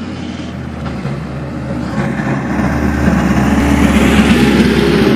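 Drag-prepped Honda Civic's engine idling, growing steadily louder as the car rolls up close.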